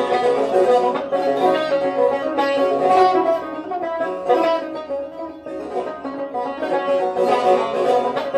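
Persian tar played with rapid, driving plectrum strokes in a chaharmezrab in the Nava mode.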